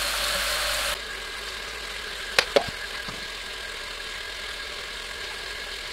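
Masala sizzling in hot oil in a frying pan, cut off abruptly after about a second. A quieter steady hiss follows, with two sharp clicks of a spoon against the pan about two and a half seconds in as yogurt is spooned in.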